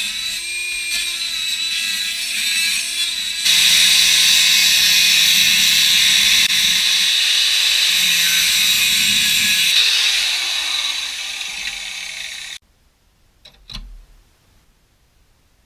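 Handheld electric power tool working the bus's sheet metal, running loud and steady and getting louder about three and a half seconds in, its motor pitch falling near the end before the sound cuts off suddenly. A single sharp click follows about a second later.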